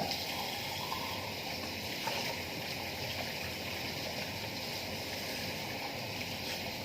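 Water running steadily, an even hiss that holds the same level throughout.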